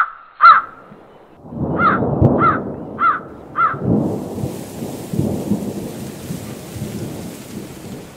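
A crow cawing in short runs of about two caws a second, the loudest sounds, over a low rumble of thunder that builds about a second and a half in. About four seconds in a steady hiss of rain joins as the caws stop and the thunder fades.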